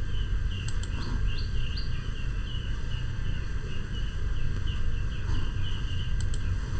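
Repeated short, high chirping, about two or three chirps a second, over a steady low hum.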